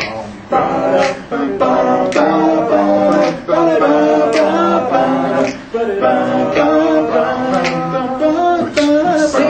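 Male a cappella vocal group singing in several-part harmony, with no instruments.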